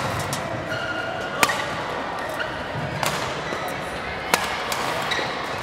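Badminton rackets hitting a shuttlecock in a rally: sharp pops about one and a half seconds apart, the loudest about four seconds in, over the steady noise of a large sports hall with play on other courts.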